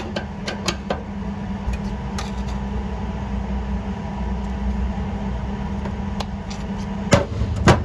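Aviation snips cutting a small steel patch panel, heard as a few sharp clicks and two loud snaps near the end, over a steady low machine hum.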